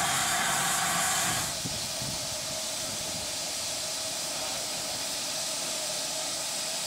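Steam hissing from the standing GWR steam locomotive 2999 "Lady of Legend". About a second and a half in it cuts to a quieter, steady hiss as the tender is filled from the water crane.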